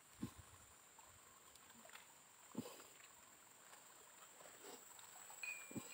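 Near silence: three faint, short thuds, one near the start, one about two and a half seconds in and one near the end, over a faint steady high hiss.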